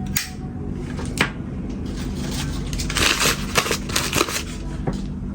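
Zippo lighters and their packaging being handled: a couple of sharp metal clicks, then about two seconds of rustling with several more clicks as lighters are picked through.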